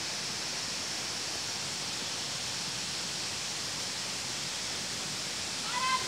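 Steady, even outdoor background hiss. Near the end there is a brief high-pitched call.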